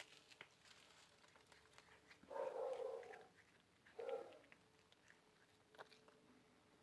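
A cat calling twice: a longer call a little over two seconds in, then a short one about four seconds in.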